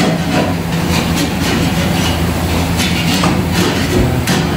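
Loud, steady drone of a commercial grill kitchen's ventilation and grill machinery, with scattered clinks and clatter of metal trays and utensils. The kitchen is noisy enough that the owner calls the sound inside too much.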